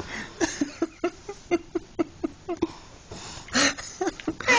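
A quick run of short, low snorting grunts, about four a second, with a louder, harsher snort about three and a half seconds in.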